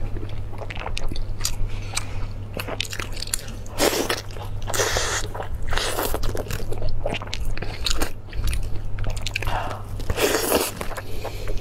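Close-miked eating: a person biting and chewing braised meat, with wet mouth sounds and several louder bites, over a steady low hum.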